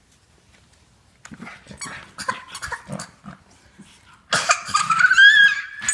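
A toddler making animal noises: scattered short vocal sounds, then about four seconds in a loud breathy burst with a high, rising squeal that is held to the end.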